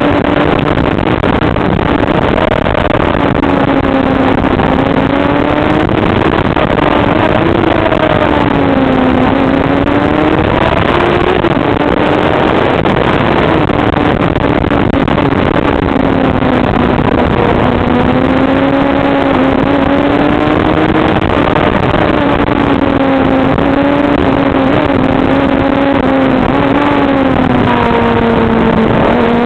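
Motorcycle engine running at road speed, its pitch rising and falling smoothly with the throttle, over a steady rushing noise.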